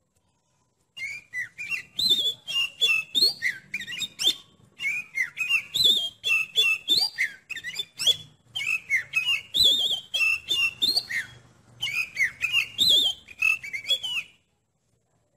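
Oriental magpie-robin (kacer) singing: a fast, varied string of whistled notes mixed with sharp, scratchy ones, in about four bursts with short breaks, starting about a second in and stopping shortly before the end.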